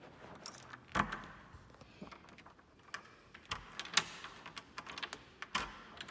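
Irregular clicks and knocks of a handheld phone being handled and jostled, with louder knocks about a second in, about four seconds in and near the end.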